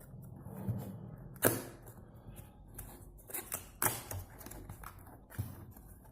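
A product box being opened by hand: packaging rustling and clicking in irregular handling noises, with two sharper clicks about a second and a half in and near four seconds in.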